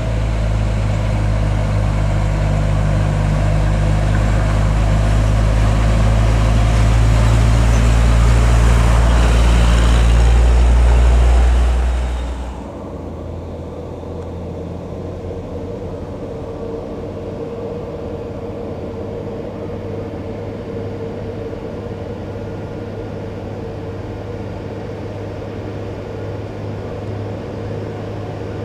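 Heavy truck's diesel engine labouring up a steep climb, growing louder for about eleven seconds, then dropping off abruptly. After that a quieter, steady engine drone continues.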